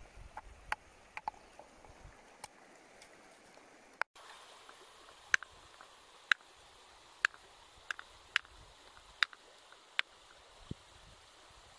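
Large knife chopping through a catfish into steaks, each stroke a sharp knock on a wooden chopping block, about once a second, with a faint stream running in the background.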